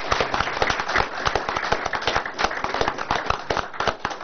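An audience applauding: many people clapping at once.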